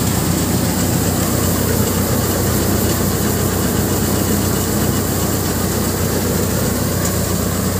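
Mustard threshing machine running steadily under load, a constant low mechanical drone with a steady hum while it threshes mustard.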